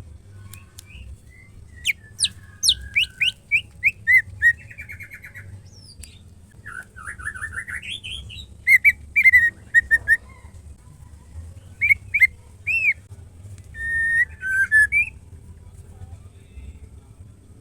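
Female white-rumped shama singing: rapid downward-swept whistles, buzzy trills and loud chattering phrases, with short pauses between them, falling silent about two seconds before the end, over a faint low hum.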